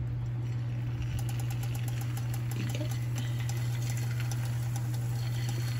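Hot oil in a frying pan sizzling and crackling as churro dough is piped into it, the crackling starting about a second in. A steady low hum runs underneath.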